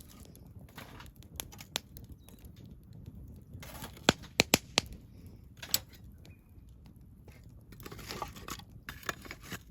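Fire-lighting sounds: rustling and crumpling, with a quick run of sharp snaps about four seconds in and one more near six seconds.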